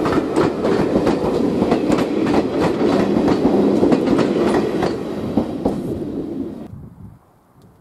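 Passenger coaches of a steam-hauled train rolling past, their wheels clicking over the rail joints in a steady clickety-clack. The noise drops away sharply near the end as the train moves off.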